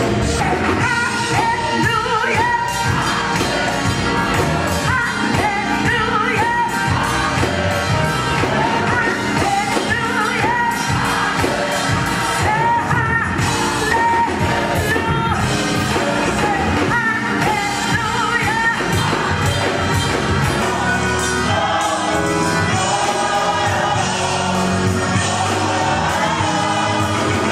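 Gospel choir singing loudly and continuously with instrumental accompaniment.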